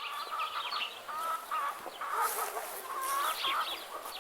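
A flock of chickens clucking, many short calls overlapping without a break.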